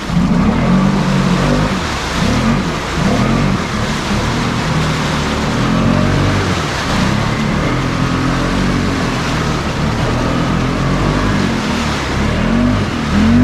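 Can-Am Outlander ATV's V-twin engine revving up and down over and over as it churns through thick swamp mud, the throttle worked hard while the tyres dig in.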